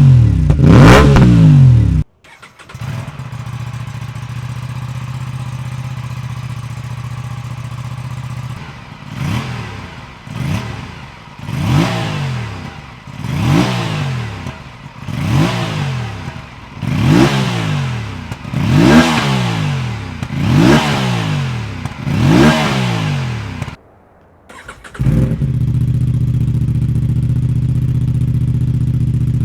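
Aprilia RS 457's parallel-twin engine idling steadily, then revved in a string of about nine short throttle blips, each rising and dropping back to idle. The sound breaks off twice between takes, about two seconds in and near the end, before idle resumes.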